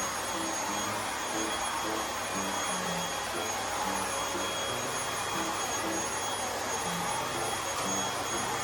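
Household vacuum cleaner running steadily, a constant motor whine over the rush of air.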